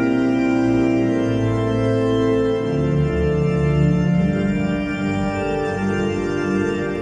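Electronic church organ with two keyboards and a pedalboard playing a hymn in slow, sustained chords, with a deep pedal bass note entering about a third of the way in.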